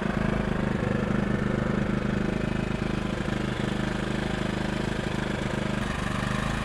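Small gasoline generator running steadily, powering a photocopier.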